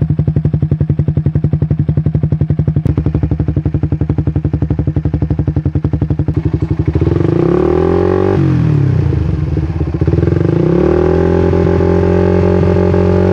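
Suzuki Satria F150 fuel-injected single-cylinder engine running through an R9 Mugello aftermarket racing exhaust. It idles with a steady pulse, then is revved twice: about seven seconds in the pitch rises and holds briefly before falling back, and from about ten seconds in a longer rev holds steady until it drops back at the end.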